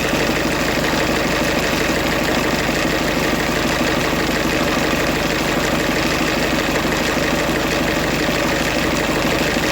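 2008 Ford Fiesta van's 1.6 diesel engine idling steadily. It runs only because the EGR valve's 5-volt reference feed is bridged to the crank sensor reference with a safety pin.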